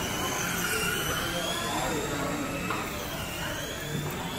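Small electric RC cars whining on a track, the motor whine rising and falling in pitch as they speed up and slow down, over a steady background noise.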